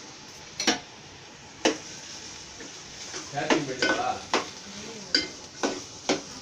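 Metal spoon stirring vegetables in an aluminium pot on a gas stove, striking the pot in sharp clinks, a couple early and a quick run of them from about halfway, over a steady sizzle of vegetables frying in oil.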